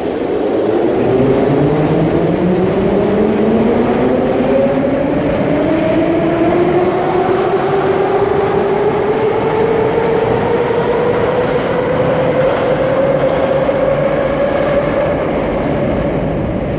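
81-717/714 ('Nomernoy') metro train pulling out of the station, its traction motors and gearing whining in two tones that rise steadily as it picks up speed, over a rumble of wheels on rail. The sound eases slightly near the end as the last car leaves.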